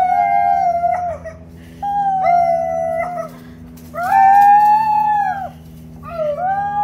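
Two girls howling in imitation of wolves: four long drawn-out howls with short breaths between, two voices at slightly different pitches.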